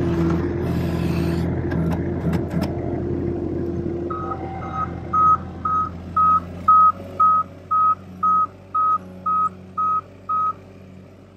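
Avant 528 compact loader's engine running, with a few knocks about two seconds in. From about four seconds in, its reverse alarm beeps about twice a second, around a dozen loud beeps, stopping near the end.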